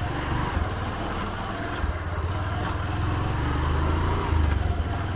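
Motorcycle engine running steadily as the bike rides along, a low rumble under steady road noise.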